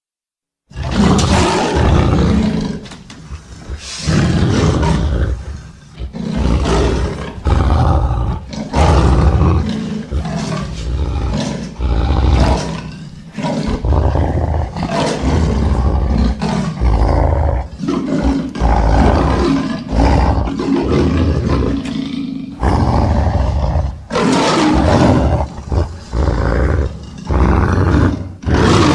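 Made-up animal sound effect, leopard and wolf recordings mixed together: a long run of loud roars, one after another with short gaps, starting about a second in.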